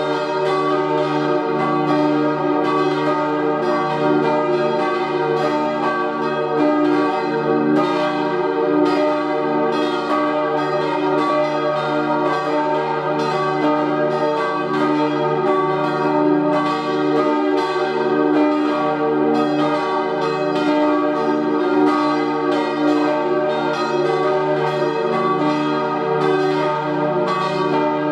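Swinging church bells cast in 1888 by Rüetschi of Aarau, tuned E-flat, G, B-flat and E-flat, ringing in a continuous peal. Their strikes overlap over a steady low hum.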